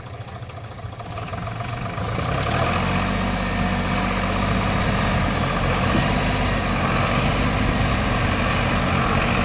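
Diesel tractor engines working under load as a small tractor tows a Deutz-Fahr Agrolux 50 4WD stuck in deep mud. The engine noise builds about two seconds in, then holds at a loud, steady pitch.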